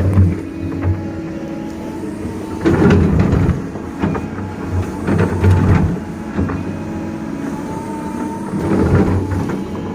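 Doosan DX225LCA crawler excavator working: its diesel engine runs steadily and swells under hydraulic load several times, with a thin whine and scattered metallic clanks.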